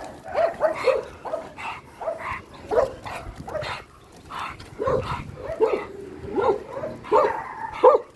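A dog barking repeatedly in short barks at an uneven pace, with a brief pause midway.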